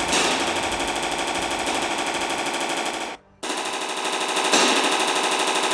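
Automatic gunfire in two long, rapid bursts, with a brief break about three seconds in.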